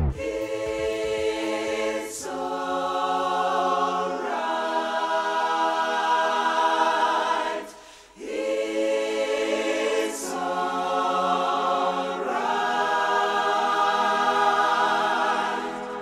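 Choral music: a choir holding long chords that change every few seconds, with a short break about eight seconds in.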